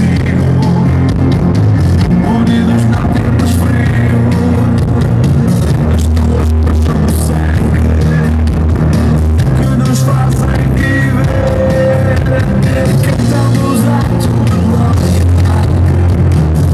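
Loud music played over a stage sound system, with a heavy, steady bass line that shifts notes every few seconds.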